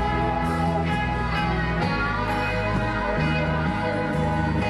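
Background music led by guitar, with held chords and a bass line that changes note every second or so.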